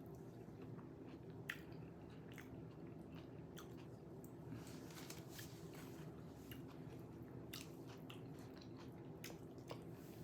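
Faint close-up chewing and biting of a soft, messy shrimp quesadilla: scattered wet mouth clicks and smacks, over a steady low hum.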